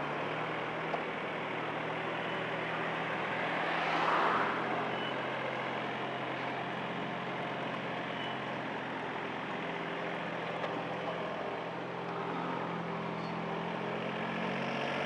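Heavy vehicle engine running steadily amid street traffic noise, with a louder swell about four seconds in as something passes or revs.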